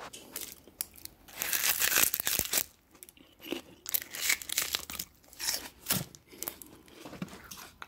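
Irregular bursts of rustling and crinkling handling noise close to the microphone, with a few sharp clicks, loudest a second or two in and again past the middle.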